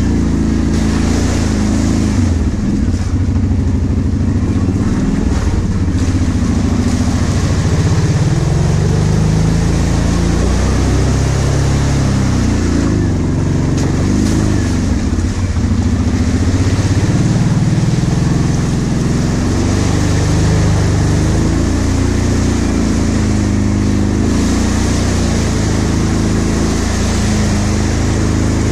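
Kawasaki Brute Force 750 ATV's V-twin engine, ridden through mud ruts, its note rising and falling with the throttle.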